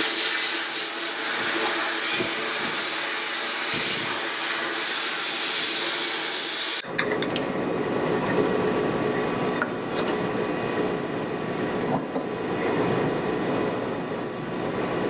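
Bead blast cabinet running: a steady hiss of compressed air and abrasive blasting rust out of the Babbitt bearing bore of a Model T starter housing. About seven seconds in it cuts sharply to the lower, steady rushing of a gas burner flame under a Babbitt melting pot.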